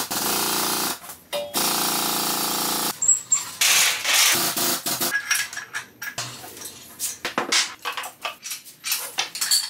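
Engine removal with a shop engine hoist: two steady stretches of noise in the first three seconds, then a string of short metallic clanks and knocks as the engine is set down and moved on its dolly.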